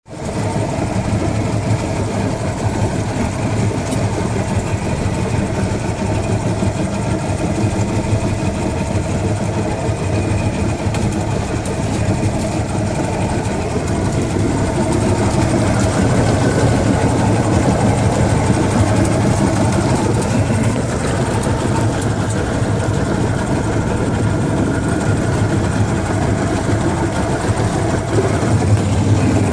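Johnson 150 hp outboard motor running steadily, with a rattle that comes and goes, heard about ten seconds in and again around twenty seconds in. The rattle is a fault of unknown cause that gets louder at higher rpm.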